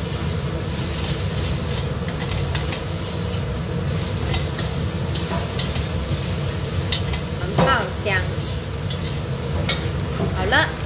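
Minced ginger, garlic and scallion sizzling in hot oil in a wok, being fried until fragrant, while a metal wok spatula stirs and scrapes them, with scattered clicks of the spatula against the wok.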